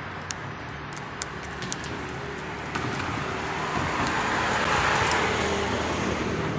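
Street traffic, with a passing car whose noise swells to a peak about five seconds in. A few sharp clicks come in the first two seconds.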